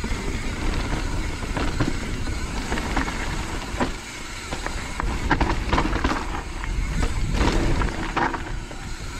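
Mountain bike descending a root-covered trail: a steady rumble of wind on the microphone and tyres on dirt, broken by frequent knocks and rattles from the bike as the wheels strike roots and small drops.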